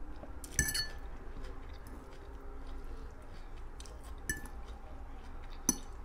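A metal fork clinking on a plate three times, each a short ringing tick: about half a second in, just past four seconds, and near the end. Faint chewing runs between the clinks.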